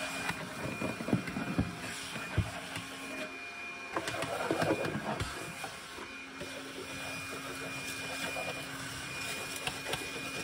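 Rubbing and a few light knocks from a hand wiping inside a wooden kitchen sink base cabinet, over a steady faint hum.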